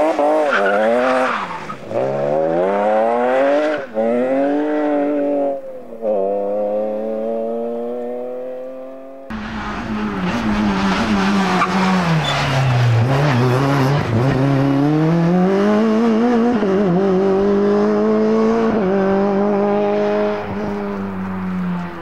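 Rally cars driven hard. A BMW E36 rally car slides across loose gravel, its engine revving up and down through quick gear changes, then fading as it pulls away. After a cut, a second hatchback rally car's engine drops low, climbs through the gears and holds high revs as it passes, easing off near the end.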